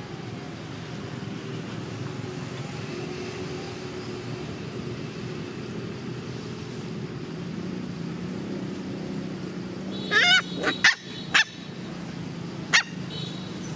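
Steady low hum. About ten seconds in, a puppy gives a quick cluster of sharp, high-pitched yelps, the first wavering in pitch, and one more short yelp near the end.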